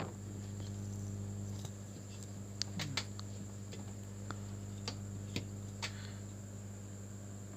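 Light, sharp clicks and taps of small hand tools on a circuit board at an electronics repair bench, half a dozen scattered through the middle of the clip, over a steady electrical hum.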